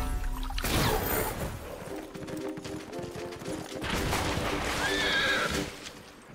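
Cartoon sound effects: a sudden magical crash a little over half a second in, then horse hooves clip-clopping under music, and a horse whinnying near the end.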